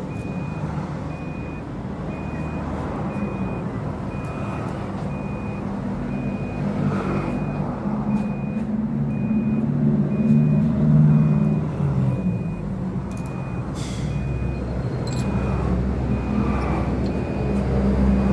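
A vehicle's reversing alarm beeping at a steady, even rate over a running engine, which grows louder about ten seconds in and then eases off.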